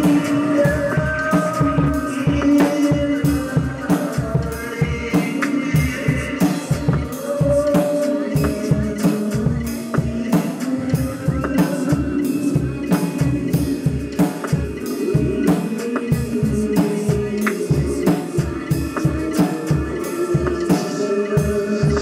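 Live screamo band playing: a drum kit with rapid, steady bass-drum hits and cymbal strikes under long, droning guitar notes.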